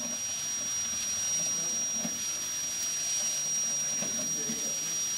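Steady hiss with a constant high-pitched whine, and faint voices in the background about two and four seconds in.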